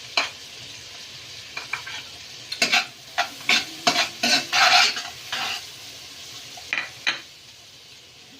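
Garlic and onion sautéing in butter in a frying pan, sizzling, while a spatula scrapes and knocks against the pan in runs of short strokes, busiest in the middle and dying down near the end.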